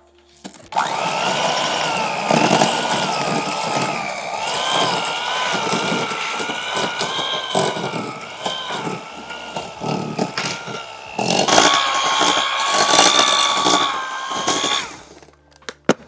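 Electric hand mixer running, its beaters churning cream cheese and sugar in a glass bowl. The motor whine wavers as the beaters work through the thick mixture, steps higher about eleven seconds in, and stops near the end, with beaters knocking against the glass.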